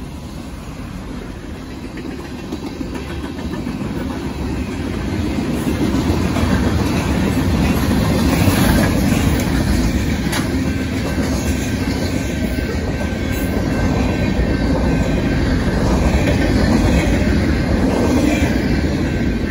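Freight cars of a Union Pacific manifest train rolling past at speed, with a steady rail noise that grows louder over the first several seconds.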